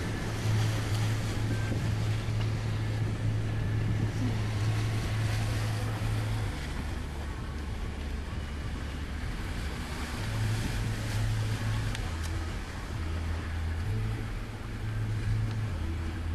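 Jeep engine running at low speed through knee-deep floodwater, a steady low drone that shifts in pitch a few times, over a wash of water noise.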